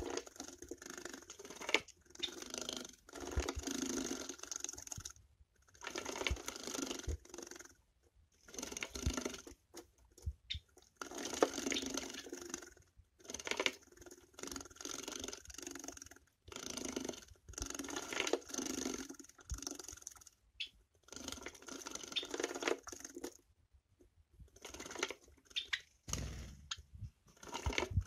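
Java sparrows bathing in covered plastic bird baths: repeated bursts of splashing and wing-fluttering in shallow water, each about a second long with short pauses between. A low rumble comes in near the end.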